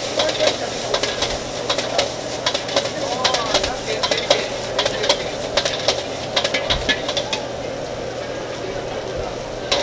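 Metal ladle clanking and scraping against a wok as pork fried rice is stir-fried, over a steady sizzle of frying. The strikes come thick and fast, then thin out about seven and a half seconds in, with one last sharp clank near the end.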